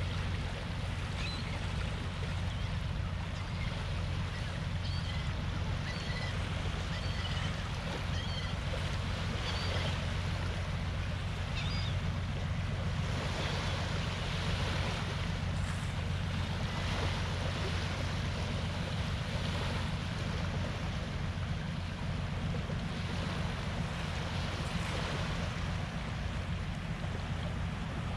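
Small waves lapping gently on a sandy shore, rising and falling in soft swells over a steady low wind rumble on the microphone. Faint short high chirps come and go during the first half.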